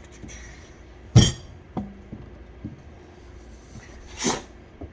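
A sharp knock about a second in and a lighter one just after, then near the end a short sneeze from a dog under the table.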